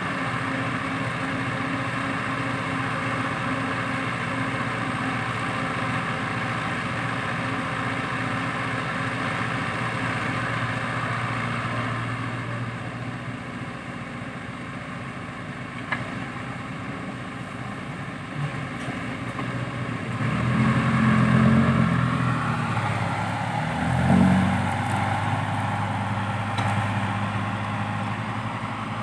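Heavy diesel machinery engine running steadily, rising under load in two swells about two-thirds of the way through, with a single sharp click near the middle.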